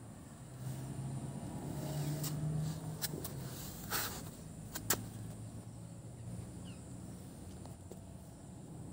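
A low engine hum whose pitch rises slightly and falls again, with a few sharp clicks about three, four and five seconds in.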